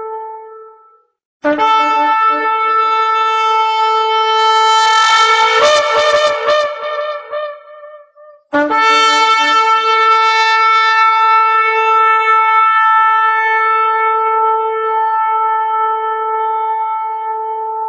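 A shofar blown in long blasts: the tail of one note fades out in the first second, then a long blast begins about a second and a half in, breaks upward and wavers in pitch around its middle, and stutters out. A second long blast from about nine seconds in holds one steady note to the end.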